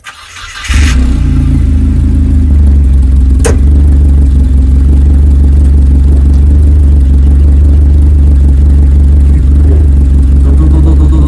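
A Mazda Eunos Roadster (NA) four-cylinder engine with individual throttle bodies, breathing through a new Car's CP1 muffler, cranks and catches within the first second. It then runs at a steady idle. This is its first start in a week and the revs have not yet settled. A single sharp click comes about three and a half seconds in.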